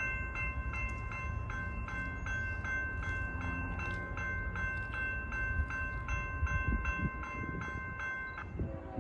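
Railroad grade-crossing bell ringing rapidly, about two and a half strikes a second, over the low rumble of a train. The bell stops shortly before the end.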